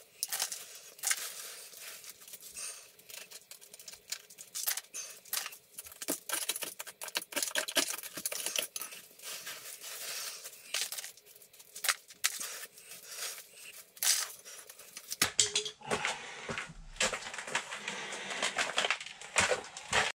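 Broken concrete chips and gravel scraped up by gloved hands, clattering in a rapid, irregular run of clicks and small knocks. In the last few seconds the knocks become fuller and heavier.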